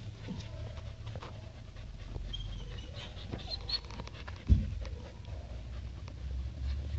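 Doodle dogs panting while they wrestle and play, with a few short high-pitched squeaks in the middle. A single sharp thump about four and a half seconds in is the loudest sound.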